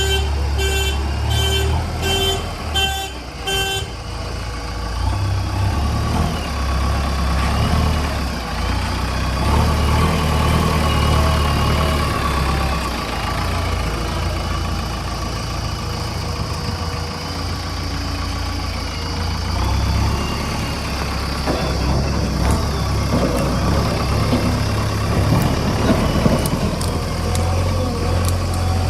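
Heavy diesel vehicle engines running steadily. For the first few seconds a vehicle's electronic beeper sounds in regular beeps, about two a second, then stops.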